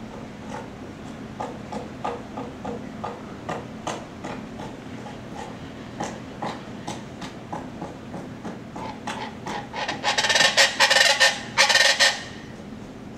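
Chachalaca calls: a run of short, raspy notes for the first ten seconds or so, then a loud, dense stretch of harsh calling lasting about two seconds near the end.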